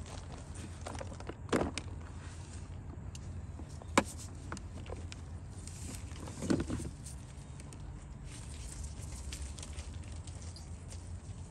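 Dry lumps of white Turkestan clay being handled in a plastic tub: they knock and scrape against each other and the tub as they are shifted and one is lifted out. There are three louder knocks, the middle one short and sharp, over a steady low background hum.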